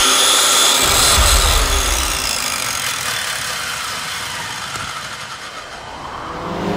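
Sound-design effect for a logo animation: a dense whooshing rush that fades slowly over about five seconds, then swells again near the end.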